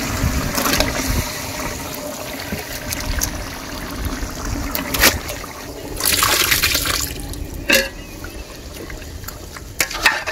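Gravy bubbling in a large cooking pot, then marinated quail pieces tipped into the hot liquid about six seconds in, with a loud wet splash and a few knocks against the pot.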